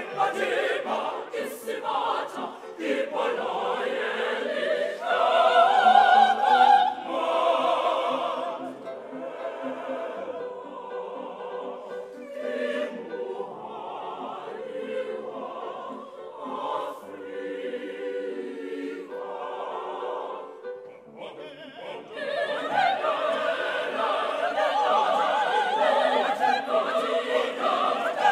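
Large mixed choir of men's and women's voices singing in harmony, swelling loud about six seconds in, softer through the middle, then coming back in at full voice after a brief drop about three-quarters of the way through.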